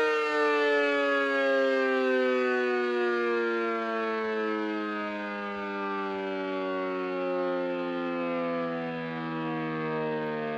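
Mini A.C.A. Cyclone 125 siren, its intake ports mostly taped over to simulate pulse, sounding a pulsed wail. Its single rich tone falls steadily in pitch as the siren winds down.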